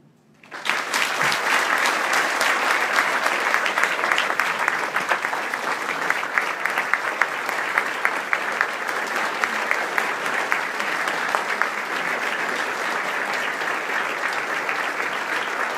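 Large dinner audience applauding at the end of a speech, breaking out sharply about half a second in and going on as a dense, steady clapping, easing a little toward the end.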